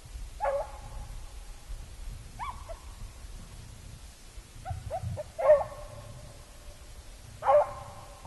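Beagle baying as it runs a rabbit's trail: drawn-out, pitched bays a second or two apart, with a couple of short yips just before the loudest bay about five and a half seconds in, and another loud bay near the end.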